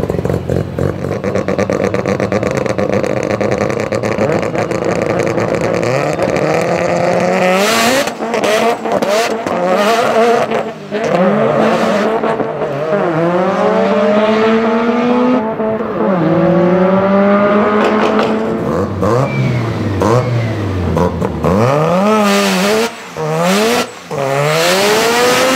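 Big-turbo Mazda RX-7 FD's engine run hard on a drag strip, its pitch repeatedly climbing and dropping as it revs and fights for traction, with sharp bangs cutting through, several near the end.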